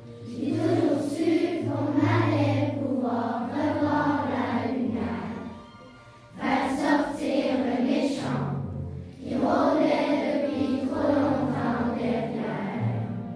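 A choir singing a song over instrumental accompaniment with a steady bass line, in long phrases with a short break about six seconds in.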